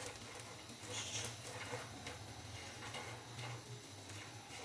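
Silicone spatula stirring chopped dry fruits in a non-stick frying pan, with light clicks and scrapes of the nut and date pieces against the pan, over a faint low hum.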